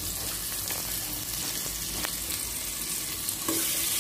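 Sliced onions and tomatoes sizzling as they sauté in a stainless steel pot. Near the end a metal spoon stirs and scrapes the pot, and the sound gets a little louder.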